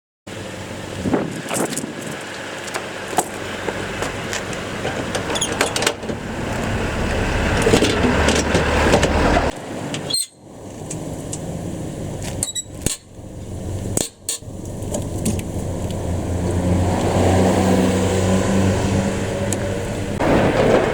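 Motor vehicle running with road noise, a steady low hum, broken by abrupt cuts about halfway through and again a few seconds later.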